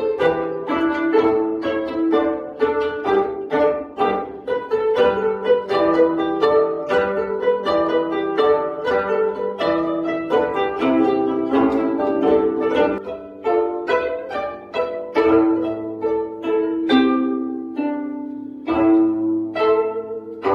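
Ensemble of 25-string gayageum (Korean plucked zithers) playing a piece together: many plucked notes, each ringing and fading, in a steady rhythm.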